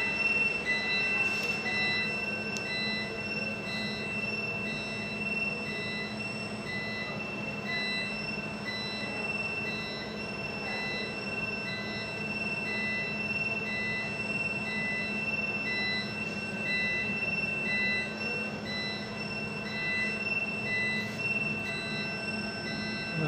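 Hooseki fire alarm sounding: a steady high tone with a second tone beeping on and off about once every three-quarters of a second, over a steady buzzing hum.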